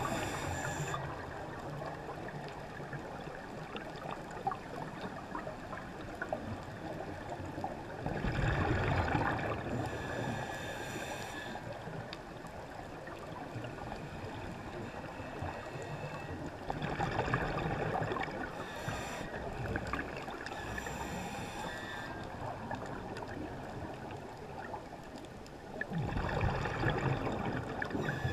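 Underwater sound of a scuba dive: a regulator's exhaled bubbles rush past three times, each burst lasting about two seconds and coming roughly every nine seconds, over a steady hiss with faint crackling between breaths.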